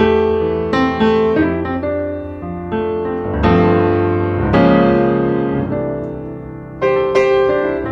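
Background piano music: chords and single notes struck every second or so and left to ring out.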